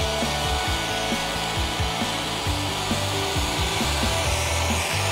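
Background music, with the steady whir of an HG P-802 radio-controlled 8x8 military truck's electric motor and gears and its tyres rolling on asphalt.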